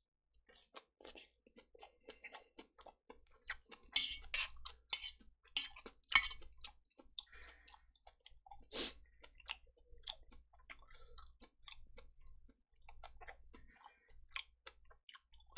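Close-miked chewing of a mouthful of kimchi and pork belly stir-fry: many short mouth clicks and smacks, loudest about four to six seconds in and again near nine seconds.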